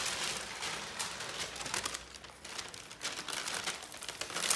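Baking paper crinkling and rustling in irregular crackles as a large sheet of rolled-out melwi dough on it is handled.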